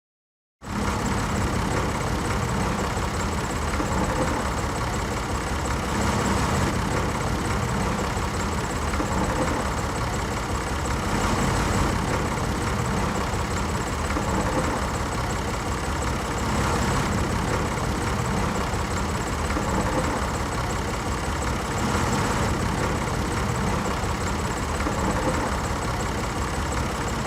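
A machine running steadily at constant speed, with a low hum over a wide hiss. It starts abruptly about half a second in.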